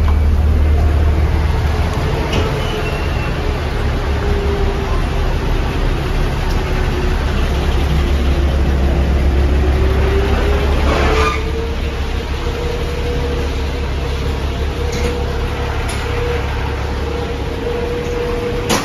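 Diesel city bus engine running close by, a heavy low rumble with a steady hum that sags in pitch and then climbs again. About eleven seconds in comes a brief burst of noise, after which the rumble eases into lighter street traffic.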